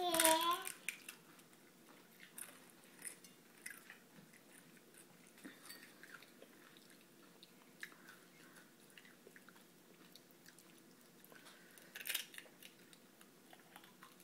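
A child chewing and biting into crisp pani puri, heard as faint scattered small clicks and crunches. A short voice sound comes right at the start, and a louder burst of sound about twelve seconds in.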